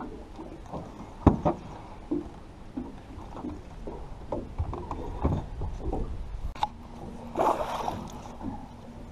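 Water lapping against a small fishing boat's hull, with scattered knocks on the boat, one sharp knock about a second in. Near the end a hooked fish splashes at the surface beside the boat as it is brought to the landing net.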